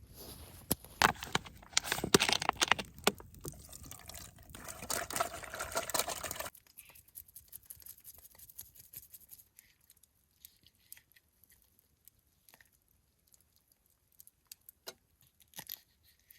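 Liquid splashing and dripping with small clicks for about six seconds, then it cuts off suddenly, leaving only a few faint ticks.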